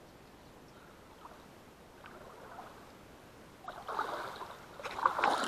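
Water splashing and lapping around a small boat moving through the water, faint at first and growing louder in the last couple of seconds, with a few sharp knocks and clicks mixed in.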